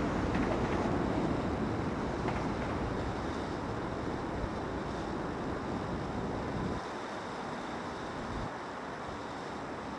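Steady outdoor rumble with wind buffeting the microphone. The low rumble fades slowly and drops away about seven seconds in.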